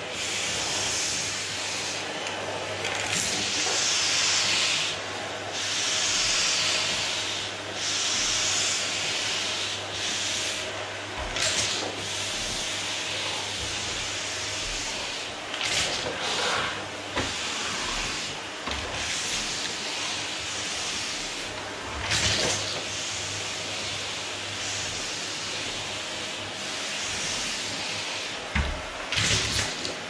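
Canister vacuum cleaner running steadily with a low motor hum as its nozzle is pushed over a hardwood floor, the suction hiss swelling and dipping every few seconds. A few short knocks are heard along the way.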